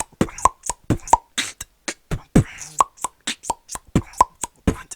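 Human beatboxing: a fast beat of vocal kick drums and sharp snare and hi-hat clicks, mixed with short hollow ringing pops, the 'tennis ball' mouth sound effect.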